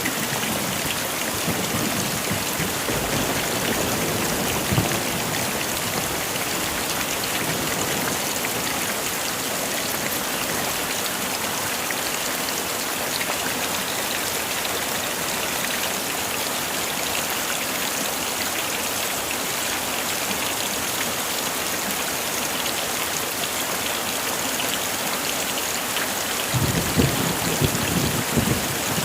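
Heavy rain pouring steadily, with low rumbles of thunder in the first few seconds and again near the end.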